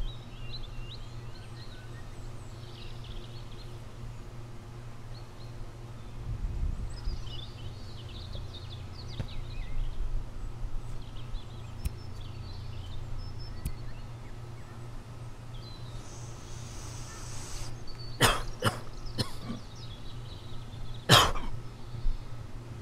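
Backyard ambience with a steady low hum and faint bird chirps, then a man coughing from cigarette smoke: three quick coughs about eighteen seconds in and a louder one a couple of seconds later.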